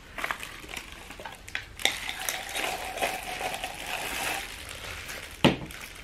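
Plastic packaging crinkling and rustling as the wrapping is pulled off a coffee grinder's bean hopper, with a sharp knock near the end.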